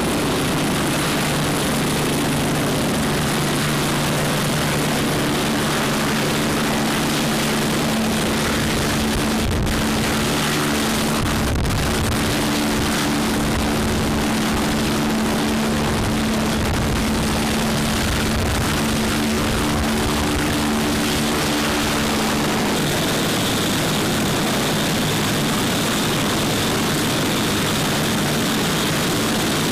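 UH-72 Lakota helicopter's twin turboshaft engines running with the rotor turning: a loud, steady turbine whine and rotor noise. About three-quarters of the way through, the low tones change and a higher whine comes in.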